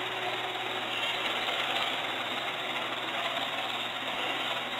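Robot vacuum cleaner running with a steady motor and brush hum.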